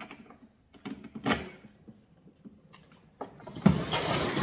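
Small bolts and a handle being handled against a plastic tool-box lid: a few separate clicks and knocks, then from about three seconds in a busy run of rattling and scraping.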